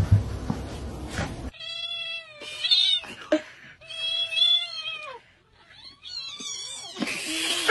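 A cat meowing repeatedly: about four drawn-out meows with a wavering, falling pitch, starting about a second and a half in. Before them comes a short stretch of rustling noise and thumps.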